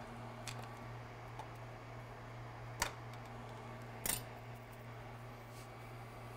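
Steady low hum of bench equipment with a few faint clicks and taps from tools being handled, the sharpest two close to three and four seconds in.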